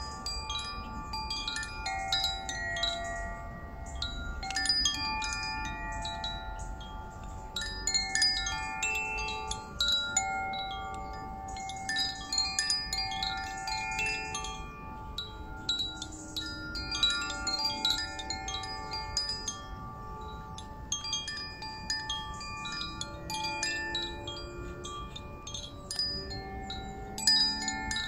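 A hand-held wind chime swayed so its tubes are struck in irregular clusters, several clear tones ringing and overlapping.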